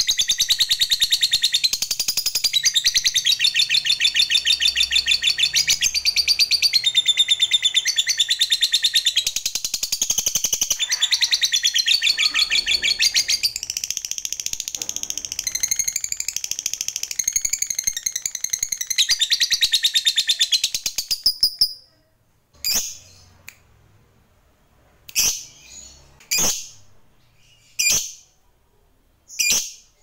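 Lovebird singing a long 'ngekek', the rapid chattering trill prized in lovebird song. It runs unbroken for about twenty seconds, then stops abruptly, followed by about five single sharp chirps a second or two apart.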